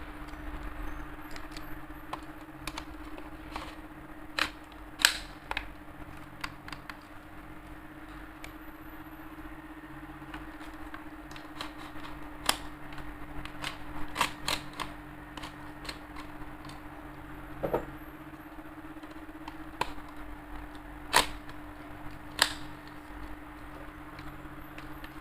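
Spring-powered airsoft M16 rifle being cocked and fired: a string of irregular sharp clicks and snaps, a handful of them much louder than the rest, over a steady low hum.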